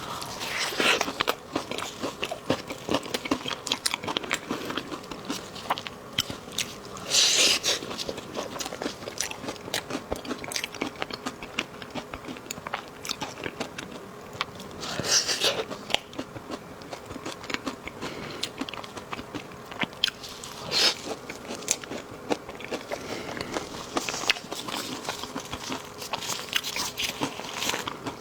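Close-miked eating: a person biting into and chewing a dessert, with many rapid wet mouth clicks and three louder bites spread through.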